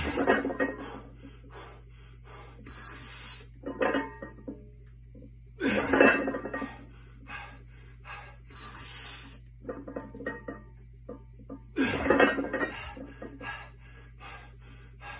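A lifter's loud, hard breathing and forceful exhales between reps of a heavy, high-rep barbell back squat set (315 lb), with the loudest bursts about every six seconds as reps are done. Music plays in the background.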